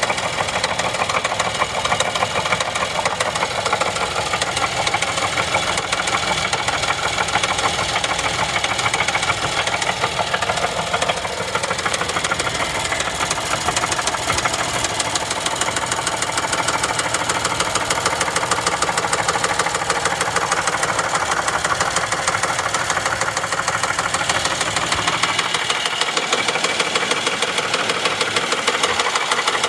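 2011 Chevy Traverse 3.6L V6 running with a terrible loud, rapid tapping clatter throughout. Camshaft position codes point to failed timing chains.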